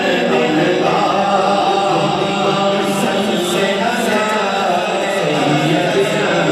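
Men's voices chanting a devotional Islamic chant together, steady and unbroken.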